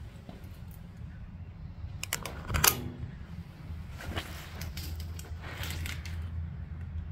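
Handling noise: a few clicks and one sharp knock about two and a half seconds in, then rustling, over a steady low hum.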